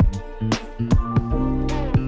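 Music with drum hits over a bass line and held instrument notes.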